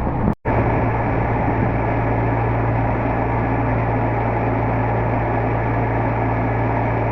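Amphicar's rear-mounted Triumph four-cylinder engine running at a steady pace with an even, low drone. A brief dropout to silence comes about half a second in.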